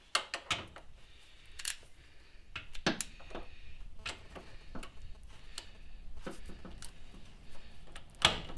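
Irregular metallic clicks and knocks from a ratchet and socket on the crankshaft pulley bolt, turned through its 125-degree angle-tightening stage. The loudest click comes near the end.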